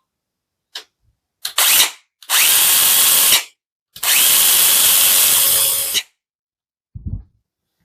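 Parkside PGHSA 20 Li cordless mini chainsaw running with no load in three trigger pulls: a brief burst, then a run of about a second, then one of about two seconds. Each run spins up quickly and stops sharply. A click comes before the runs and a low thump near the end.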